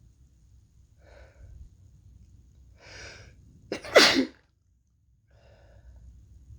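A person sick with what may be a cold sneezing once, loudly and sharply, about four seconds in, after two drawn breaths; a faint breath follows near the end.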